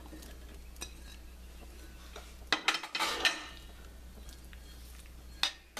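Metal spoon scraping and clinking against a stainless steel pan as cooked chicken is stirred into a thick cheese sauce, with a cluster of scrapes and clinks about two and a half seconds in and single clicks before and after. A steady low hum runs underneath.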